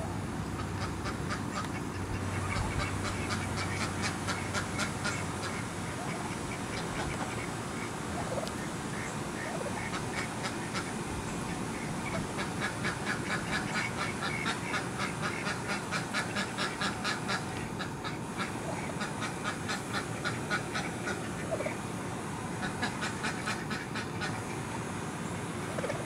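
Domestic white turkey hen giving runs of quick, short calls, several a second, in stretches of a few seconds at a time.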